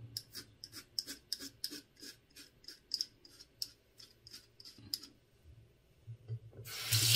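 Gillette Sensor 3 three-blade cartridge razor cutting short stubble in quick strokes, about four or five a second, each a crisp crunchy rasp; the strokes stop about five seconds in. Near the end a tap starts running.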